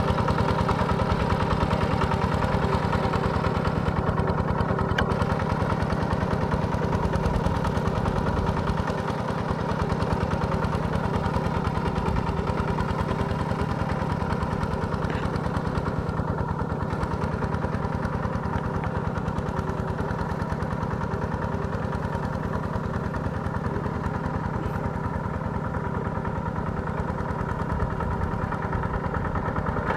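Single-cylinder diesel engine of a Kubota RT140 walking tractor running steadily under load as the cage-wheeled machine works through a flooded rice paddy, with a fast, even chugging beat.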